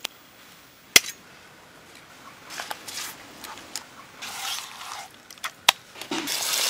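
Hands working thick masala paste into raw chicken in a clay pot, making soft wet squishing sounds, with two sharp clicks, one about a second in and one near the end.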